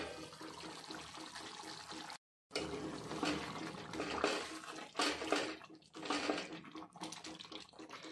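A steel lid is lifted off a kadhai at the start, then thick arbi (taro root) gravy cooking on low heat is stirred with a steel ladle, giving uneven wet sloshing strokes.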